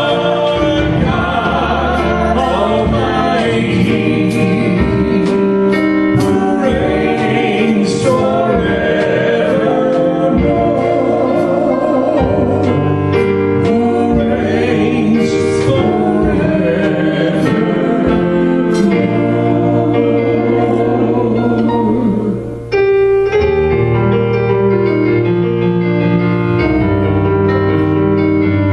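Gospel worship song: singing over instrumental accompaniment. About 22 s in the sound dips briefly, and after that only the keyboard plays on.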